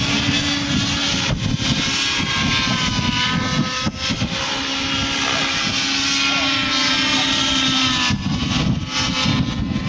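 Radio-controlled model helicopter flying overhead, its engine and rotor whine rising and falling in pitch as it manoeuvres, over a steady low rumble.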